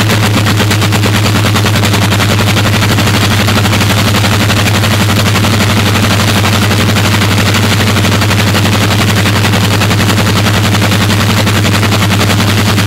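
Rolls-Royce Merlin V12 and Bristol Hercules sleeve-valve radial aero engines running together at a steady speed on test stands: a loud, rapid, even exhaust beat over a deep hum.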